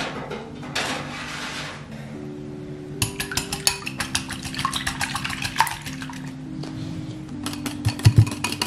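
Wire hand whisk beating egg whites in a ceramic bowl for meringue: a rapid, steady clicking of the wires against the bowl, starting about three seconds in, with soft background music underneath.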